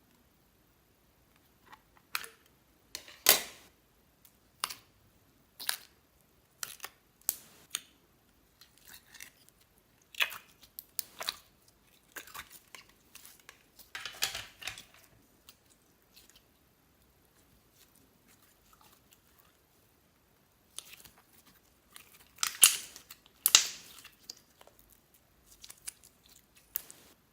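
Slime being squished and worked by hand: a series of sharp, wet clicks and pops, coming in clusters with a lull of a few seconds about two-thirds of the way through.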